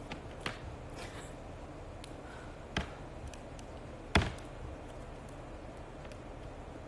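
A few separate sharp clicks and taps from a small cosmetic tube being handled with long acrylic nails close to the microphone, the loudest a little after four seconds in, over faint steady room noise.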